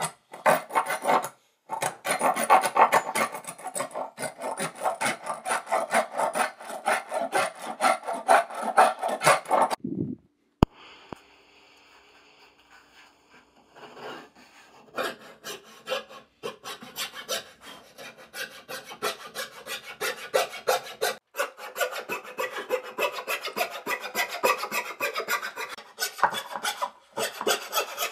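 Rapid back-and-forth scraping strokes of wood being shaped by hand with an abrasive tool, rubbing across the grain. About ten seconds in the strokes stop for roughly four seconds, with only a faint hum and a single click, then start again.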